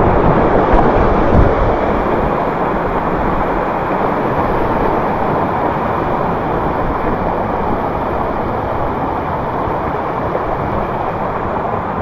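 Steady, loud rush of water, an even hiss-and-rumble without any distinct events.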